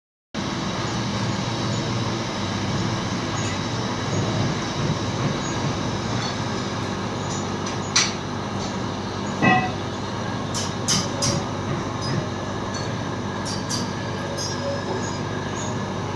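Steady low background rumble, with a handful of sharp metallic clicks and one brief ringing clink in the middle, from a long wrench working the connecting rod locking nut inside a bag closer's cast metal head.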